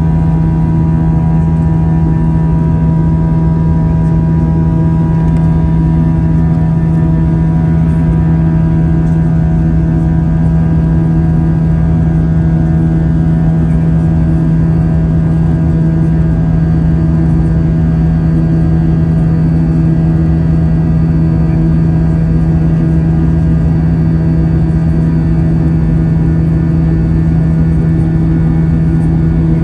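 Airbus A320 jet engines in flight, heard from inside the cabin: a loud, unchanging drone with a strong low hum, fainter steady higher tones above it and a rumble beneath.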